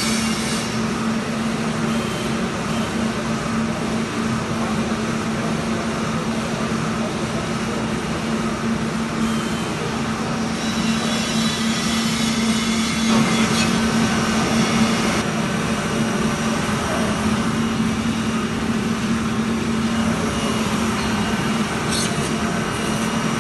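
Circa-1950 Barth Sirocco 200 convection ball roaster running: its hot-air blower and drum drive make a steady rushing noise over a low, constant hum, the hiss growing louder about halfway through.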